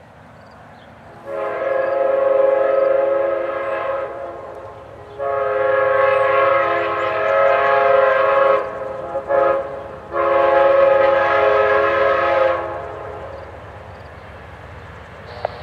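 Multi-tone air horn of an approaching Amtrak GE P42DC passenger locomotive sounding the grade-crossing signal: two long blasts, two brief toots, then a final long blast. A low train rumble runs underneath.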